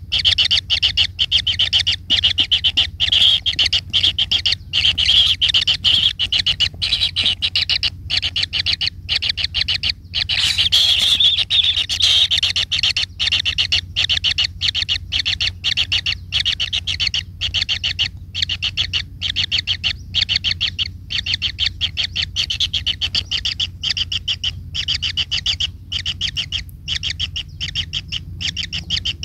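A bird calling in a fast, continuous run of high, sharp chirps, many per second, with short breaks and a denser, busier flurry about ten seconds in.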